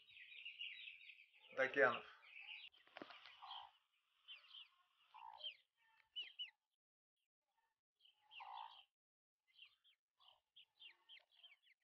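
Young Shamo fighting-breed chicks peeping: scattered short, high chirps, some in quick runs, with brief quiet gaps between them.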